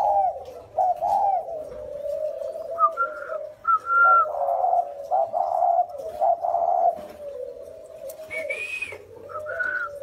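Caged spotted doves cooing over and over, several coos overlapping. The two birds are a 'còi' (clear, whistle-like) voice and a 'thổ' (deep) voice, the two coo styles prized by Vietnamese dove keepers.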